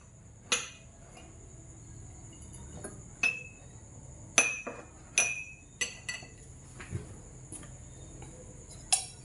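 Glass and ceramic tableware being set down and handled: a string of about eight sharp clinks and taps, some ringing briefly. A steady high-pitched insect chirring runs underneath.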